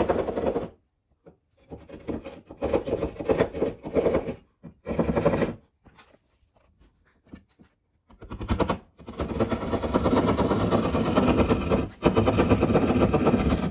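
Hand drywall saw rasping through drywall in quick back-and-forth strokes. It comes in short bursts at first, stops for a couple of seconds midway, then runs steadily through the last few seconds.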